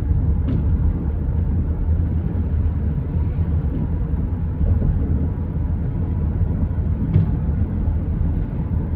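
Distant fireworks: two faint sharp pops, about half a second in and near seven seconds in, over a steady low rumble.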